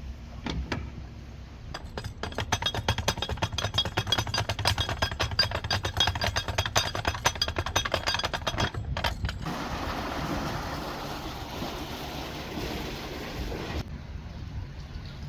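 Narrowboat diesel engine running under way, with a fast clattering rattle for several seconds, then a rush of wind noise on the microphone that stops suddenly.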